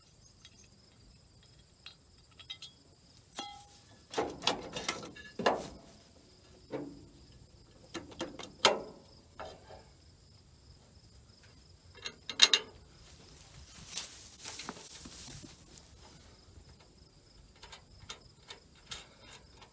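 Crickets chirping steadily, with scattered clinks and knocks of metal parts being handled, the loudest about twelve and a half seconds in, and a brief rustle soon after.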